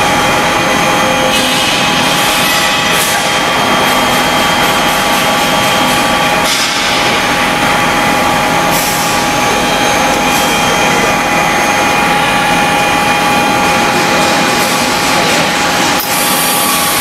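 Portable H-beam cutting machine running as it cuts a steel beam section: a loud, steady rushing noise with several constant whining tones.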